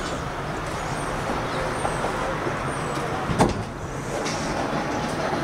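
Steady rumble of road traffic, with one sharp knock about three and a half seconds in.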